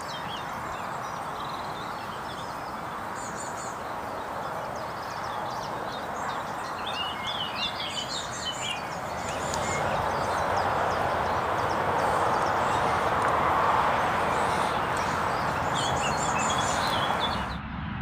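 Small birds chirping in short bursts, in clusters a few seconds in and again near the end, over a steady rushing background that grows louder in the second half and cuts off suddenly just before the end.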